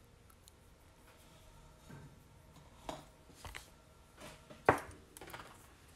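A few soft clicks and taps of plastic nail-art swatch sticks and a polish brush being handled on a table, the sharpest one a little before the end.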